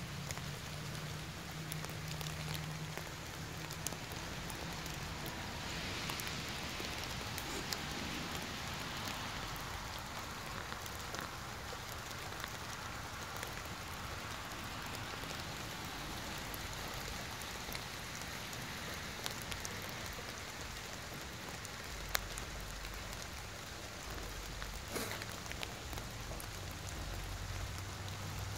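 Steady rain falling on wet ground, an even patter with a few sharper ticks scattered through it.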